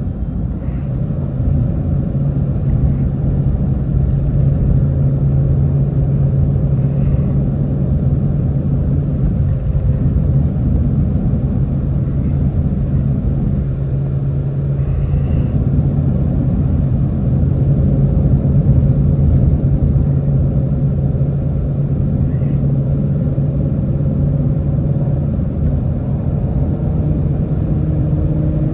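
Shelby GT350's 5.2-litre flat-plane-crank V8 holding a steady drone at an even cruise, over a low road rumble, heard from inside the cabin.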